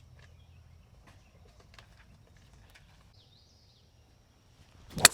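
A quiet outdoor background with faint ticks and a short bird chirp about three seconds in; near the end, a single sharp crack of a golf club striking a ball.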